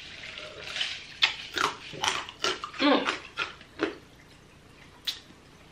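Ice from a fountain-drink cup being crunched between the teeth: a run of sharp crunches, roughly two or three a second, with a brief hum of the voice partway through.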